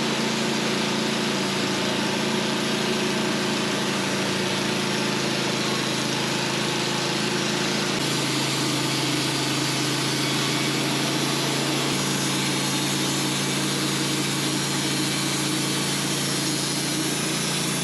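Portable band sawmill running under load, its engine holding a steady pitch as the blade cuts through a large white pine log. The engine tone shifts slightly about eight seconds in and again about twelve seconds in.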